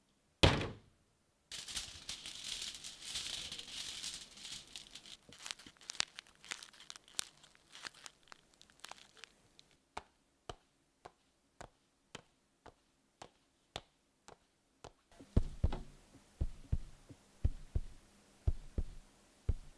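A run of hand-made Foley sound effects in a small room. It opens with one low thump, then several seconds of crinkling or tearing noise, then scattered sharp clicks, and near the end a series of low thuds about twice a second.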